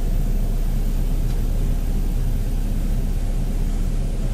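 Steady low rumble inside an air-conditioned sleeper bus on the move: engine and road noise through the cabin.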